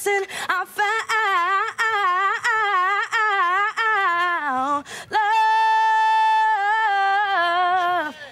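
A woman's voice singing a cappella, with quick runs bending up and down in pitch. About five seconds in she holds one long steady note, then bends it and lets it fall away near the end.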